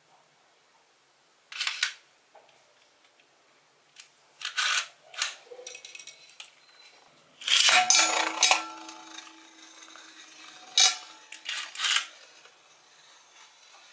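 Plastic spinning-top toy (Beyblade) launched into a stainless steel bowl: a loud clatter about eight seconds in, with the bowl ringing on for about a second. The top then spins in the bowl, knocking against it a few times near the end. Before that come a few scattered knocks of the top being handled.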